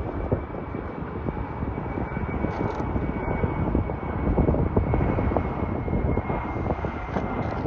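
Boeing 737-500 jet airliner coming in to land, its CFM56 turbofan engines giving a steady rumble with a faint high whine that slowly drops in pitch. The sound swells slightly around the middle.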